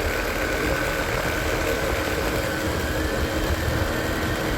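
Vehicle engine running steadily while riding, with a continuous low road rumble, picked up on a phone's built-in microphone.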